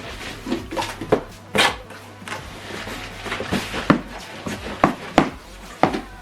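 Irregular knocks, clicks and rustles of cardboard and packing material being handled as a soundbar and subwoofer are unboxed.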